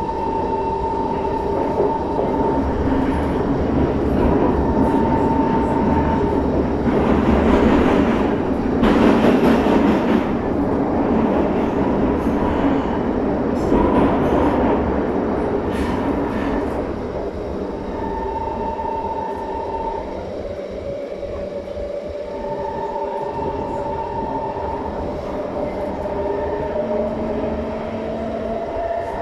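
SMRT metro train running, heard from inside the car: a steady rumble of wheels on the track, loudest about a third of the way in, under a steady motor whine. Near the end one of the whining tones rises in pitch.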